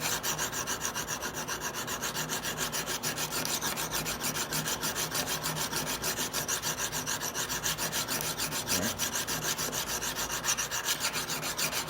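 Hand-held knife sharpener rubbed rapidly back and forth, about four strokes a second, across the flat back of a hoof knife's blade to keep the back flat.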